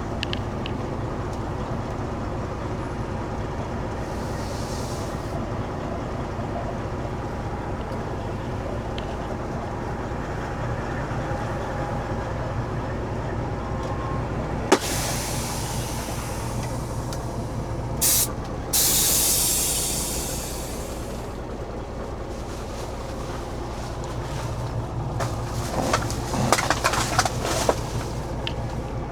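Peterbilt 389 truck's diesel engine running steadily, with hissing from its air brakes partway through: a sharp click and a short hiss, then a longer hiss of about two seconds that fades. Irregular rattling near the end.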